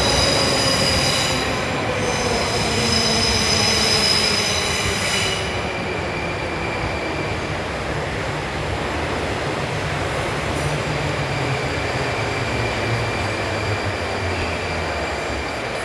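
Metro train braking into a station: high squealing from the wheels and brakes over a falling motor whine for about the first five seconds. After that the train stands at the platform with a steady low hum.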